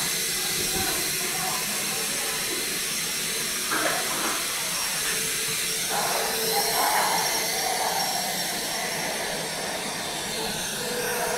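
Steady hiss and hum of plastic injection moulding machines with robotic arms running in the workshop, with a brief knock about four seconds in and another about six seconds in.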